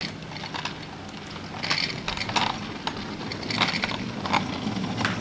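Fold-up kick scooter rolling on asphalt, its small wheels making a steady rumble, with two louder scraping stretches about two seconds apart and a few light clicks.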